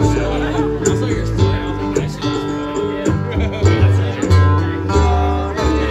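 Acoustic string band playing live: strummed acoustic guitars and mandolin over plucked upright bass notes.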